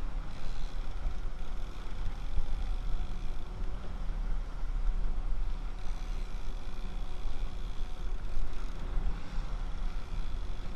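Twin outboard motors on a fishing pirogue running steadily under way, a continuous low rumble with a faint steady drone over it.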